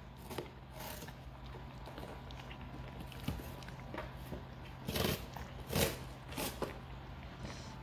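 A small dog pawing at and biting into a cardboard box, the cardboard scraping and crinkling in a few short bursts, the loudest about five and six seconds in.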